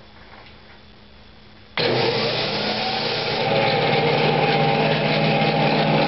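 A 1915 Arco Wand Model 361 central vacuum's electric motor and blower are switched on about two seconds in. The machine comes up to speed and then runs steadily with a loud hum over a rush of air.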